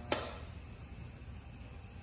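TIG welder striking an arc for a tack weld on the stainless exhaust header: one sharp click just after the start, then only a faint steady low hum.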